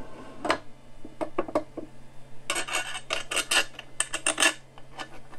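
Resin vat of an Anycubic Mono X resin 3D printer clicking and clattering against the printer as it is set in place and shifted by hand, a quick run of knocks that is densest around the middle. The vat moves freely because its securing pins are not yet tightened.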